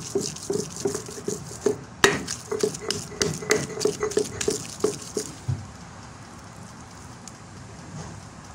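Sil batta grinding: a stone roller worked back and forth over raw beef mince on a flat grinding stone, in a fast even rhythm of about three strokes a second that stops about five seconds in.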